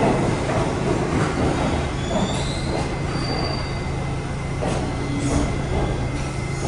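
R68 subway train rolling slowly along the station platform. Its wheels click over the rail joints, under a steady low hum, with brief high-pitched wheel squeals about two to three seconds in.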